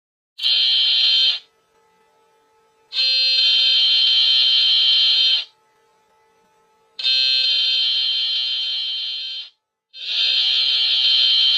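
Slowed-down emergency alert alarm: a loud, high electronic tone sounding in separate blasts. The first blast is short and the next three last about two to two and a half seconds each, with a faint low steady tone in the gaps between them.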